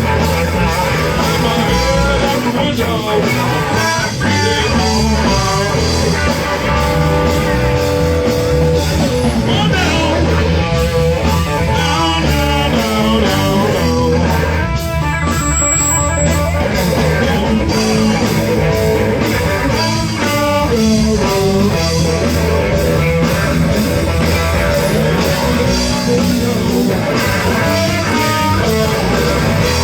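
Live band playing a blues-rock number, with an electric guitar playing lead lines over a steady bass.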